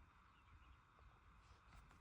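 Near silence: faint low background hum.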